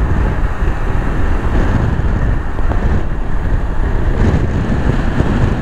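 Wind buffeting the microphone on a moving motorcycle: a loud, steady low rumble with the bike's engine and road noise blended underneath.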